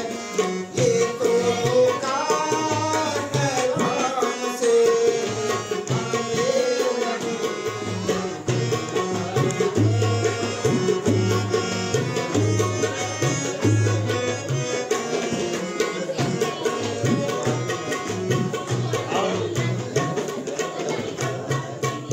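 Tabla and harmonium playing together: a fast run of sharp tabla strokes with deep bass-drum strokes under them, over a sustained harmonium melody.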